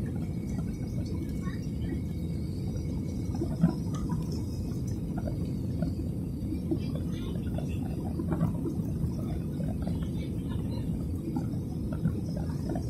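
Airliner cabin noise in flight: the steady low rumble of the engines and airflow heard from a window seat. A faint knock comes about three and a half seconds in, and another near the end.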